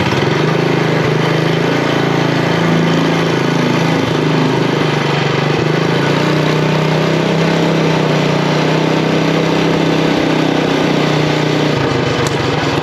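Predator Ghost 212cc single-cylinder four-stroke engine on a mini bike, running steadily just after being started. Its note changes briefly near the end.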